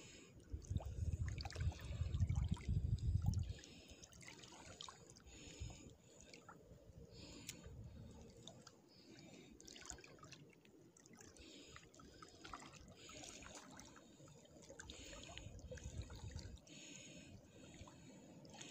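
Shallow seawater sloshing and splashing around the legs of someone wading, a swish every second or two. A low rumble is loudest during the first few seconds.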